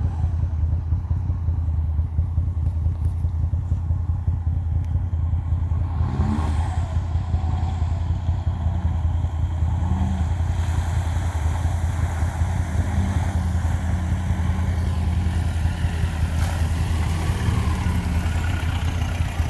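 Steady low engine rumble throughout, with a lifted Mahindra Roxor's 2.5-litre turbodiesel getting louder from about six seconds in as it drives up the muddy trail, through a puddle, and passes close near the end.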